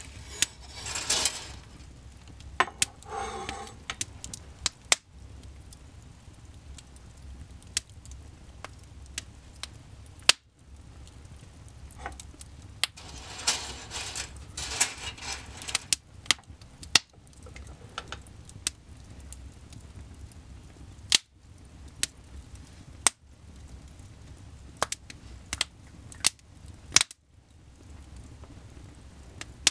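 Wood fire burning in a fireplace, crackling with irregular sharp pops, several of them loud, over a low steady rumble, with a couple of brief stretches of hissing.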